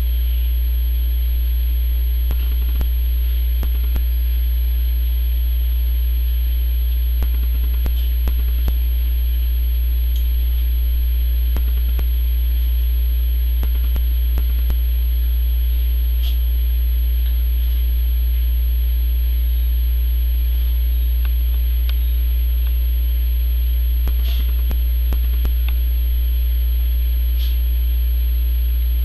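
Steady low hum, with faint scattered rustles and scratches from a small dog squirming and rolling on a towel on a couch.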